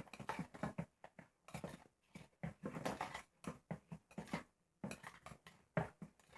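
Slime being stirred with a mixing utensil in a bowl of water so that it soaks the water up: quiet, irregular wet squelches and clicks of the utensil against the bowl.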